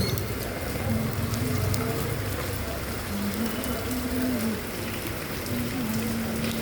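Steady rain falling, an even hiss, with a faint pitched sound wavering underneath.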